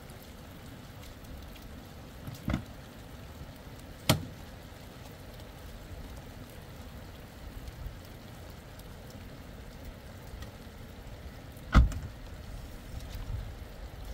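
Steady noise of rain and wind in a storm, broken by three sharp thumps: one a few seconds in, another about a second and a half later, and the loudest near the end.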